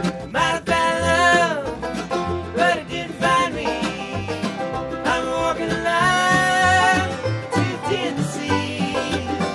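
Acoustic bluegrass band playing live: banjo and mandolin picking over guitar and an upright bass walking low notes.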